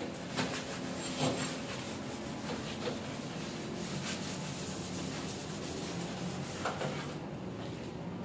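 A sponge scrubbing the soapy top of a stainless steel gas stovetop, with a few light knocks. The scrubbing stops near the end.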